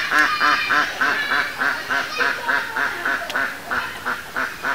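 A duck quacking in a rapid series of about four calls a second, gradually getting softer.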